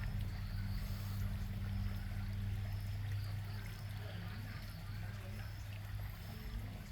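Small pond waterfall trickling and splashing steadily into the pond, over a steady low hum.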